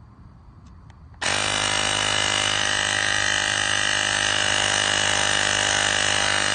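Airmoto cordless tire inflator's electric compressor motor starting abruptly about a second in, then running with a loud, steady buzz while it pumps.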